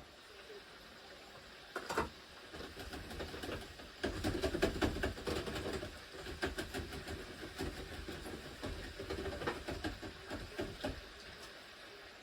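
Kitchen handling noise: a busy run of clicks, knocks and rattles, heaviest a few seconds in.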